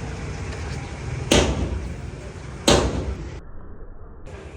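Two hard hammer blows on the steel of a bent hydraulic jack, about a second and a half apart, each ringing briefly after the strike, over a low workshop hum.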